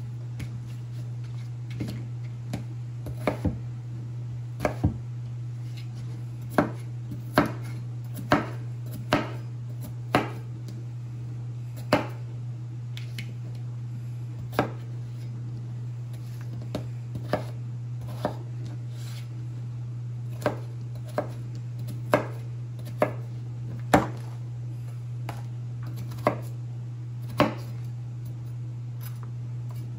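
Chef's knife dicing raw potatoes on a plastic cutting board: sharp single chops at an uneven pace, sometimes two or three in quick succession, with pauses between. A steady low hum runs underneath.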